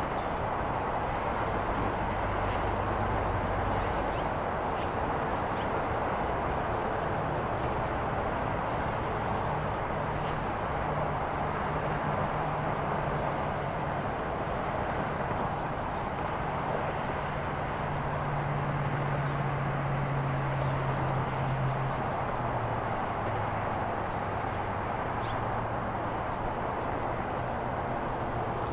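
Steady rumble of distant traffic, with a low engine-like drone that wavers in pitch, and faint high bird chirps now and then.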